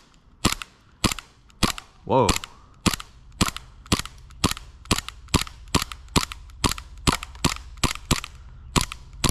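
Novritsch SSP18 gas blowback airsoft pistol firing single shots in steady succession, about two a second, at a plastic airsoft mask.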